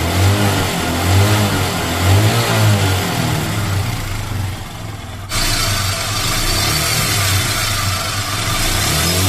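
Single-cylinder motorcycle engine of a Hero Super Splendor running and being revved up and down, with an abrupt change in the sound about five seconds in.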